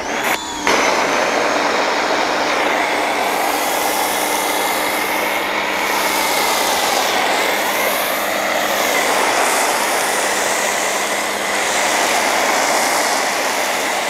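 Ryobi 1800 PSI electric pressure washer running under load with the trigger held, an Amazon Basics foam cannon spraying car wash soap foam with a steady hiss over the pump motor's whine. It starts with a brief stutter as the trigger is squeezed, then runs evenly.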